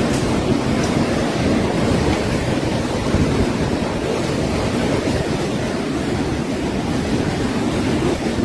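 Strong hurricane wind rushing steadily and buffeting the microphone.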